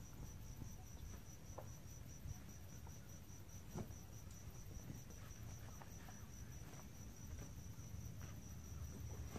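A high, steady insect trill, pulsing rapidly without a break, with a few faint rustles and light knocks underneath.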